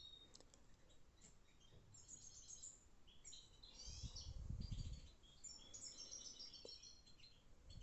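Faint chirping of small birds: repeated short, high chirps, with a soft low rumble swelling about four seconds in.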